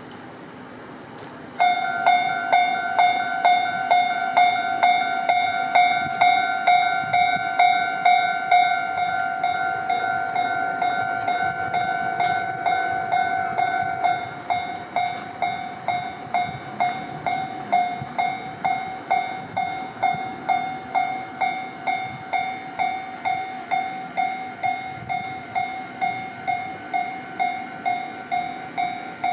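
Japanese railway level-crossing warning bell starting to ring about a second and a half in: an electronic 'kan-kan' clang repeating evenly at about two strikes a second. About halfway through it becomes quieter, as one of its tones drops out.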